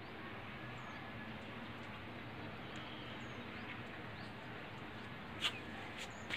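Steady low background noise with a few faint, short, high chirps, and a sharp click about five and a half seconds in.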